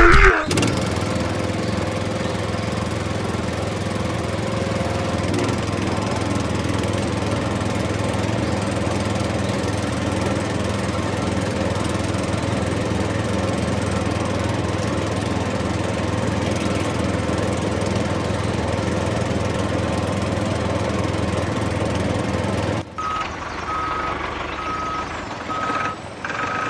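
A small motor running steadily at constant speed, cutting off suddenly about 23 seconds in.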